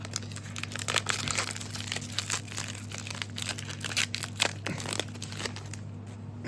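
Trading-card booster pack wrapper being torn open and crinkled by hand: a dense, irregular run of crackles and rustles, over a low steady electrical hum.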